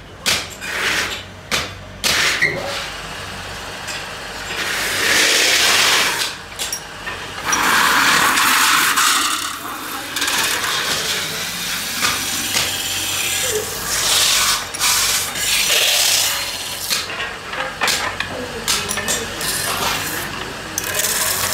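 Metal-spinning lathe running while a long hand-held spinning tool is pressed against a spinning sheet-metal disc to form a pan. The tool rubbing on the metal gives harsh scraping surges that swell and fade every few seconds, with a few sharp clicks near the start.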